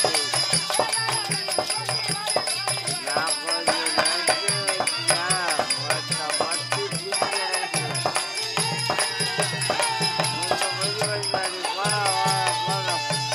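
Therukoothu folk-theatre music: a hand drum played on the lap keeps a fast, steady rhythm, with sliding melody lines and a held note near the end. Bells jingle over the drumming as the costumed dancer dances.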